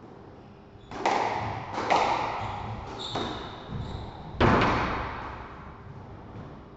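A squash ball being struck by rackets and hitting the court walls: about four sharp cracks, the loudest about four and a half seconds in, each ringing on in the hard, echoing court.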